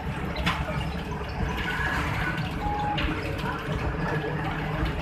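Steady road and engine rumble heard from inside a moving vehicle, with a couple of brief knocks.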